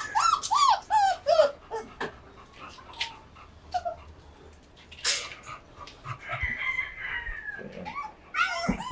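Puppies whining and yelping: a quick run of about five short cries, each falling in pitch, then more cries near the end. Scattered clicks and a single clank about five seconds in sound between them.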